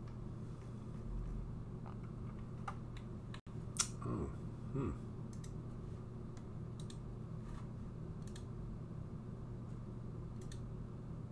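Computer mouse and keyboard clicks, scattered single clicks over a steady low hum. A louder clatter with a short wavering sound comes about four seconds in.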